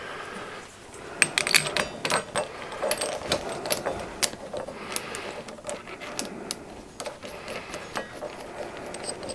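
Metal clamp parts and packing pieces clinking, knocking and scraping against a cast-iron casting and the milling machine table as the workpiece is clamped down, in irregular sharp clicks.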